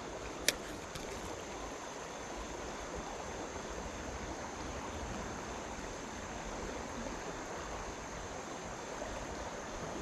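River water flowing, a steady rushing noise, with one sharp click about half a second in.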